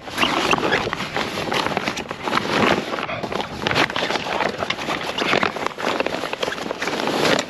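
Stiff mainsail cloth rustling and crinkling, a dense irregular run of crackles, as it is pushed and folded by hand into a boom bag.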